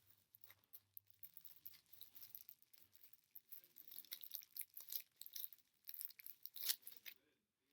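Faint crinkling and rustling of packaging being handled as squishy toys are unpacked, with scattered small crackles and clicks.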